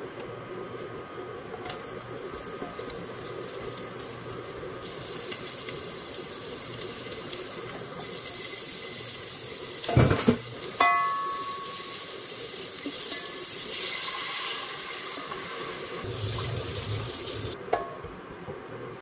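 Water heating in a pot on an induction cooktop, a steady hiss that grows as it nears the boil. About halfway through, a ladle knocks against the pot with a short ringing clink. Near the end a glass pot lid clicks into place.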